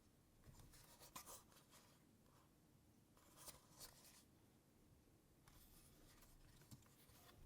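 Faint typing on a KBDfans D45 keyboard with Gazzew U4 silent tactile switches: soft, muffled keystrokes in short runs with pauses between.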